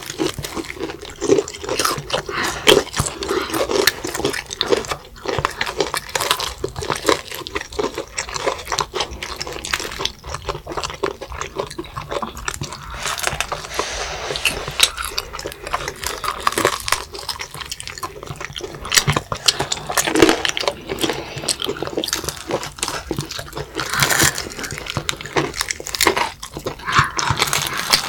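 Several children biting and chewing crispy fried chicken drumsticks: irregular crunching of the fried coating with chewing sounds.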